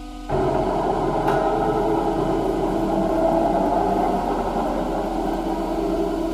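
A CNC guillotine shear humming steadily, then going loud with working machine noise about a third of a second in as it cycles, with a sharp click about a second in.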